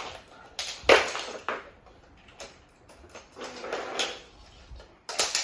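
Handling noises from toy pieces being put together on a table: several sharp knocks and clicks, the loudest about a second in and another pair near the end, with a stretch of rustling around four seconds in.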